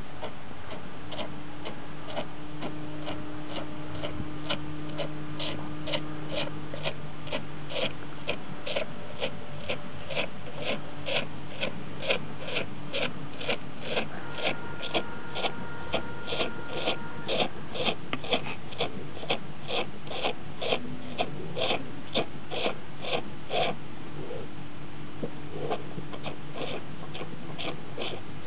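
Cow sucking milk from her own teat: a steady rhythm of short wet sucks about twice a second, which pause briefly near the end and then resume more faintly.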